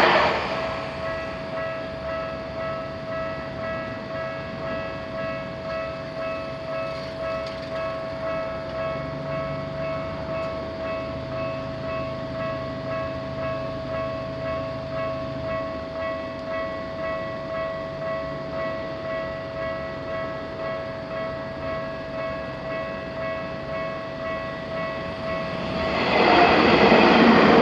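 Japanese railway level-crossing alarm bell ringing with an even, repeating pulse while the crossing stays closed. A passing train's noise dies away at the start, and another train rushes through near the end, drowning the bell.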